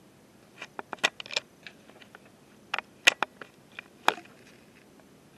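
Handling noise: a series of sharp clicks and taps in quick clusters about one second and three seconds in, with a single loud click about four seconds in.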